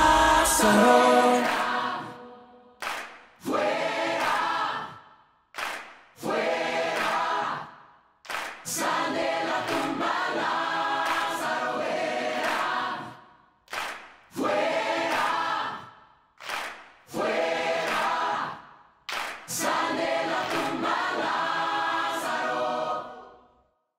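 Music with a deep bass fades out in the first two seconds. Then a group of voices sings a cappella, holding chords in short phrases of one to three seconds with brief breaks between them.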